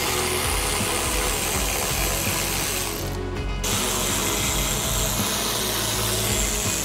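Cordless electric ratchet spinning bolts out, running in two long stretches with a short pause a little after three seconds.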